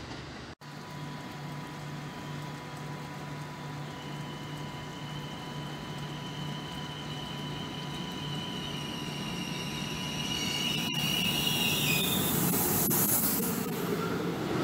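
PKP Intercity EU44 Husarz (Siemens Taurus) electric locomotive approaching with a passenger train and running past close by, growing steadily louder. A steady low hum runs under a high whine from about four seconds in until about twelve seconds, and a hissing rush of the wheels and coaches builds over the last few seconds as the train draws alongside.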